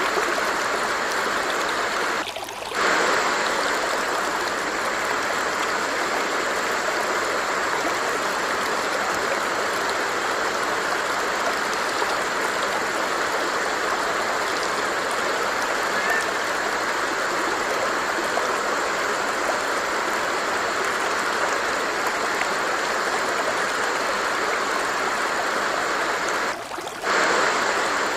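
Stream water running with a steady, even rush, briefly dipping about two seconds in and again near the end.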